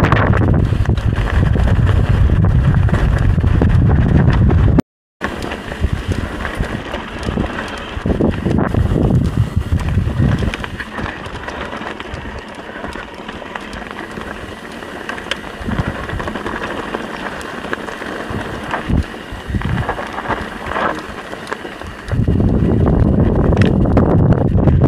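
Wind buffeting the microphone during a mountain bike ride on a dirt trail, with scattered knocks and rattles from the bike. The wind is heavy for the first five seconds, the sound cuts out completely for a moment, then it is quieter with knocks before the heavy wind returns near the end.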